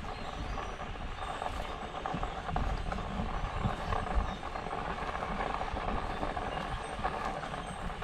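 Footsteps walking along a dirt and grass trail, with a low, uneven rumble and rustle from the camera being carried.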